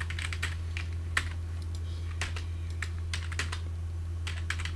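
Typing on a computer keyboard: irregular keystrokes in short runs, over a steady low hum.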